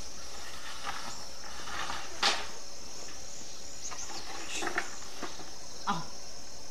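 Crickets chirring steadily, with a sharp click about two seconds in and a few softer clicks and knocks later on.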